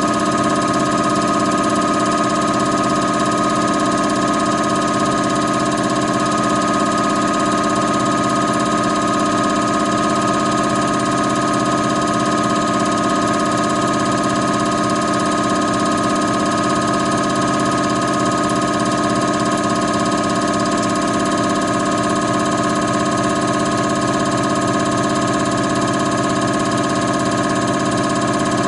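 Common rail injector test bench running: its motor-driven high-pressure pump turns at 800 rpm, holding 1600 bar rail pressure while a Bosch 0445120227 injector is tested. It makes a steady, unchanging machine hum and whine with several held tones.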